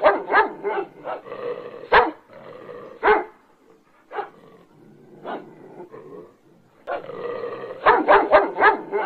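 Recorded dog barking and growling: sharp barks come irregularly over a low growl, thin out in the middle, then come in a fast run near the end.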